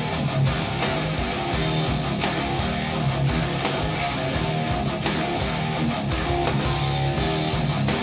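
Guitar-driven rock track with a steady beat, played through a pair of Microlab Solo 6C bookshelf speakers and recorded in the room.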